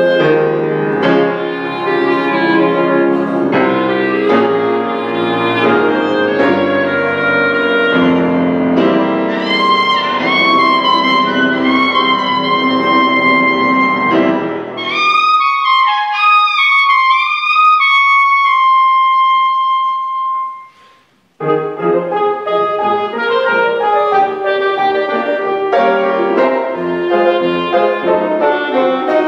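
Clarinet and grand piano playing together. About halfway through, the piano drops out and the clarinet plays a solo phrase alone with sliding, bent notes, ending on a long high held note. After a brief pause both instruments come back in together.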